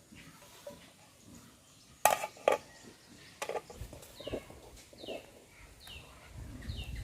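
A metal cooking pot and ladle clatter a few times about two seconds in, with one more knock a second later. Then a bird calls over and over with short falling chirps, about one a second.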